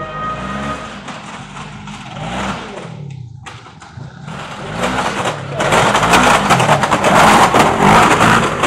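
Side-by-side UTV engine revving up and down again and again as it climbs the course, with a loud rushing, rattling noise building over the last few seconds.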